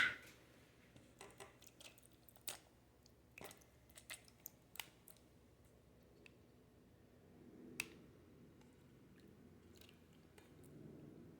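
Faint wet squishes and scattered clicks of raw chicken organ meat being handled and dropped into dog food bowls, with a sharp click at the very start.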